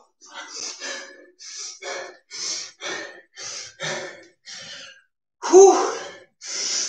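A man breathing hard after an intense exercise set, with quick forceful breaths about two a second and then a loud voiced sigh about five and a half seconds in. He is out of breath at the end of a workout.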